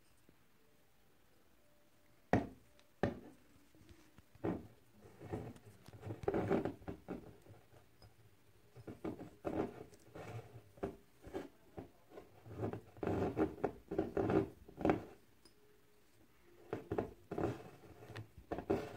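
Handling noise from woollen yarn being wound around a glass bottle: two sharp knocks about two seconds in, then irregular rustling and scraping as the bottle is turned, with a short lull before the last few seconds.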